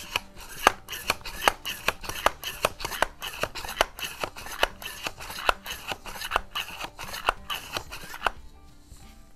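Metal pump handle of a Swedish Excellent C1 .21-calibre pneumatic air rifle worked about ten times to build air pressure for the shot. Each stroke gives a sharp clack, roughly one every 0.8 seconds, with lighter clicks and rubbing between. The pumping stops about 8 seconds in.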